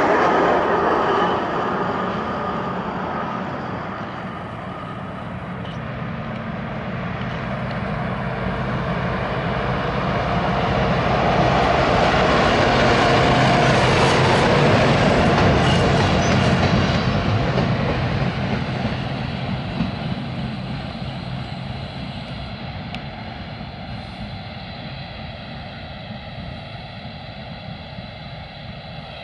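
Peterbilt hi-rail truck's diesel engine running as it tows a gondola car along the track, with steel wheels rumbling on the rails. It passes close by, loudest about halfway through, then fades as it pulls away.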